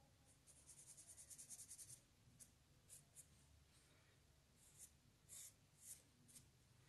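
Faint pencil scratching on paper: a quick run of back-and-forth shading strokes, about eight a second, starting about half a second in and lasting a second and a half, then several separate single strokes.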